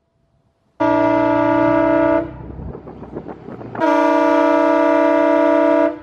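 Truck-mounted Horn Blasters multi-trumpet train horn, air-powered from an onboard compressor tank, sounding two loud blasts of its steady chord: one of about a second and a half, then after a short gap a longer one of about two seconds.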